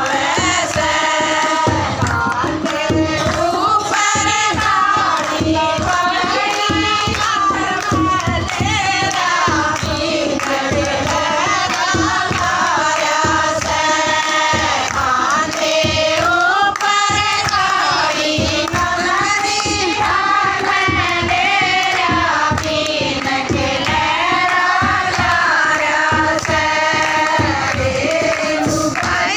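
Women singing a devotional song together to a dholak drum and hand-clapping, with a steady beat under the sung melody.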